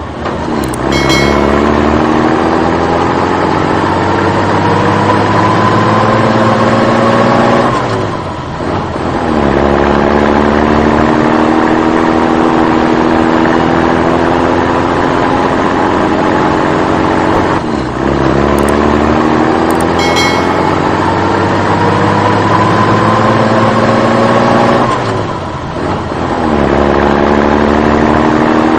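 Vehicle engine revving: the pitch climbs slowly for several seconds, drops back, settles and climbs again. The same cycle of roughly seventeen seconds repeats exactly, like a looped engine sound.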